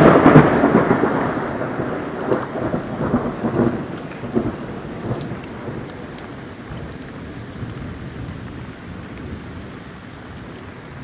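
A close thunderclap opens with a loud crack and rolls off in a crackling rumble that fades over about five seconds. Steady rain falls under it and carries on after it.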